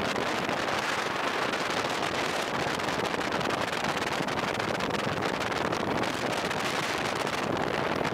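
Wind buffeting the microphone of a camera on a motorcycle riding at road speed: a steady, crackling rush of noise that covers any engine sound.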